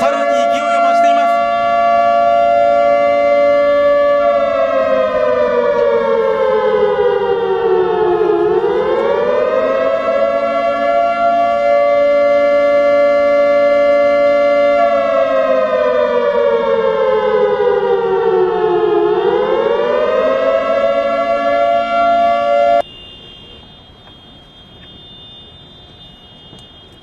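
Outdoor civil-defence warning siren sounding a long steady tone that twice slides down in pitch and winds back up, then cuts off suddenly near the end, leaving only a faint steady high hum.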